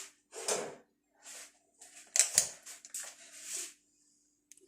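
Handling noises: a few short rustles and knocks as things are moved about, over a faint steady hum.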